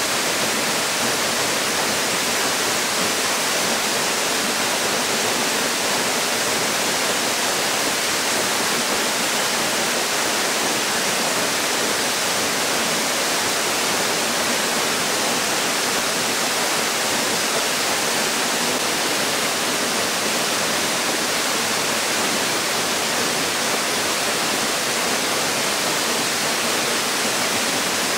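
Waterfall pouring: a steady, unbroken rush of falling water, mostly a bright hiss with little low rumble.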